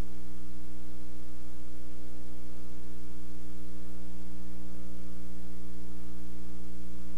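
Steady electrical mains hum, unchanging in pitch and level, with a hiss over it.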